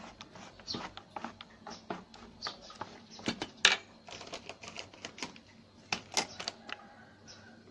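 A spoon stirring thick batter in a metal bowl, knocking and scraping against the bowl in a run of irregular clicks. The sharpest knock comes a little past three and a half seconds in.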